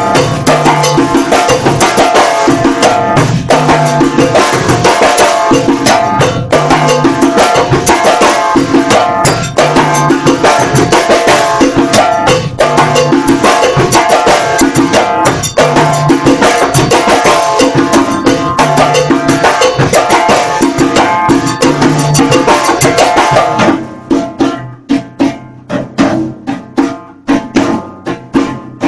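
Djembe played by hand together with a drum kit, a continuous groove in 9/8. About 24 seconds in, the playing thins to sparser, separate accented hits.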